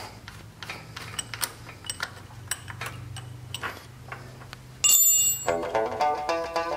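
Small metallic clicks and taps from hands working loose the carburetor caps on a vintage Honda motorcycle engine. About five seconds in, a sudden bright bell-like ding, then plucked-string music begins.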